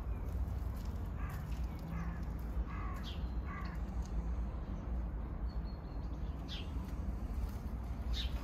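Kea calling: four short calls in the first half, then a few thin falling whistles, the last near the end, over a steady low rumble.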